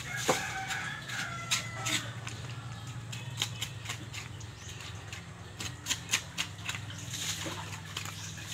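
Hands scraping scalded hair off a piglet's carcass: a string of short, irregular rasping scrapes and rubs over a steady low hum.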